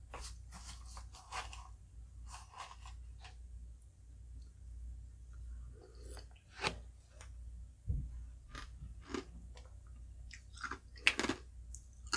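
Close-miked eating sounds: a spoon scooping through shaved ice and ube ice cream in a glass bowl, then chewing and crunching a mouthful of halo-halo, with sharp mouth clicks, over a low steady hum.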